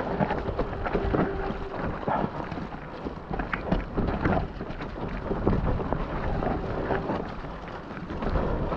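A mountain bike riding fast down a wet, muddy trail: a steady rumble of wind and tyres through mud, with the bike rattling and knocking over bumps. A steady hum is heard through the first second and a half.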